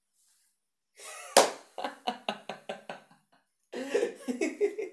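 A man's acted, exaggerated laughter: a sudden loud burst about a second in, breaking into a quick string of 'ha' pulses, then a second run of laughter near the end.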